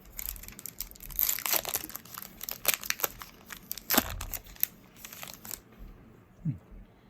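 Foil wrapper of a Yu-Gi-Oh booster pack crinkling and crackling as it is opened and the cards are pulled out, stopping about five and a half seconds in.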